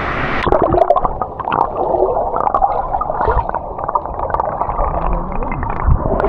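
Muffled water gurgling and bubbling heard with the microphone under water, full of small pops, the waterfall's hiss cut off; the full hiss returns as the microphone comes up near the end.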